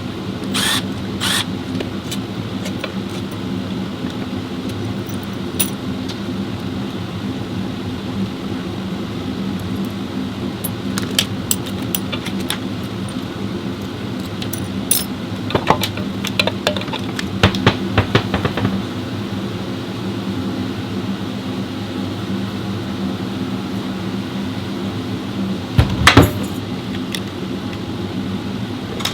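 A steady low mechanical hum, with scattered metallic clinks and knocks of tools and parts being handled; a cluster of clinks a little past halfway and one louder clank near the end.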